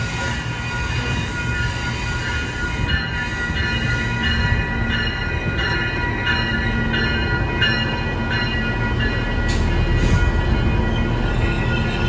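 Nippon Sharyo diesel multiple unit, driven by Cummins QSK19 diesel engines, pulling into a station with a low engine rumble that grows stronger as it comes alongside. Level-crossing warning bells ring over it in a steady pulse of about one and a half strokes a second.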